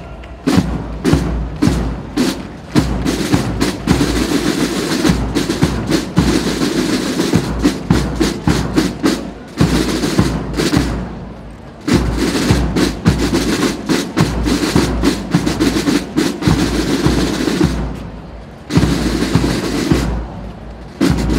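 Marching-band drums beating a parade cadence: rapid snare drum strikes and rolls over steady bass drum beats, easing off briefly twice.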